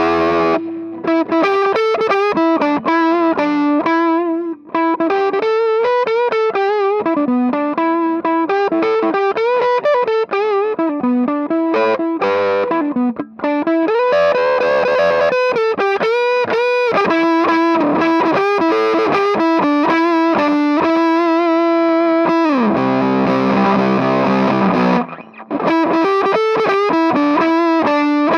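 Electric guitar played through a Sound Sounds hybrid fuzz box pedal, giving a heavily fuzzed, distorted tone. It plays a riff of single notes with bends and slides, then holds a chord near the end. There is a short break about halfway through, as the pedal's fuzz knob is turned.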